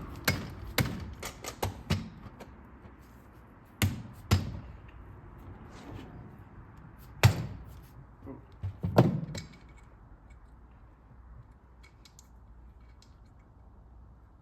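Hard knocks of a ring gear being beaten down onto a Sterling 10.5 axle's differential carrier to seat it: a quick run of blows in the first two seconds, a pair about four seconds in, and a few more around seven to nine seconds.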